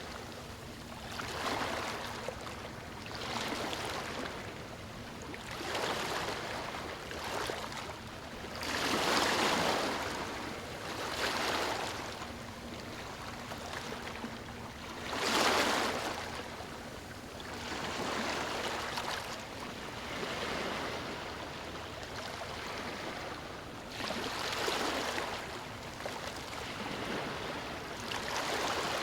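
Small waves washing up a beach, each rush of surf swelling and fading every few seconds. The biggest breaks come about nine and fifteen seconds in.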